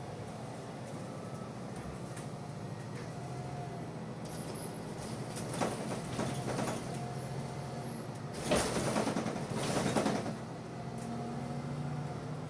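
Inside a city bus: its engine running steadily as it moves through traffic, with two bursts of compressed-air hiss from the air brakes, about six and nine seconds in, the second the louder.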